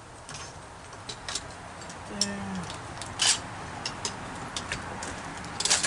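Scattered knocks and clicks of a wooden form board and metal bar clamps being moved and set against a wall, with one sharper knock about three seconds in and another near the end. A brief low tone sounds about two seconds in.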